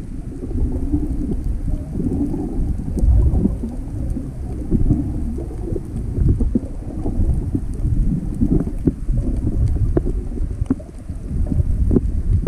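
Muffled underwater rumble of water moving around a submerged camera, swelling and fading unevenly, with a few faint clicks.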